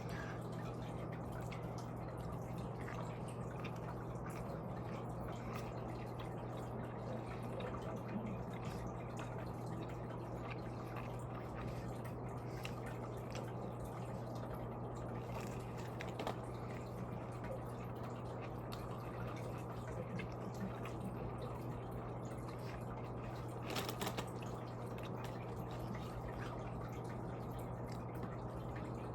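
Steady low hum with a faint hiss, broken by a few faint clicks about every eight seconds.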